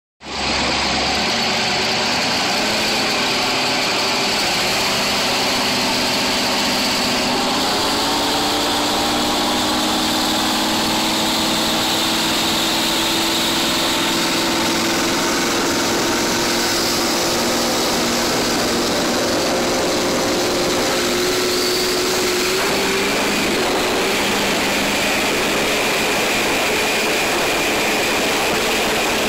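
Supercharged inboard engine of a 26 ft American offshore powerboat running hard under way, its pitch climbing about eight seconds in and then holding steady, over a constant rush of wind and water.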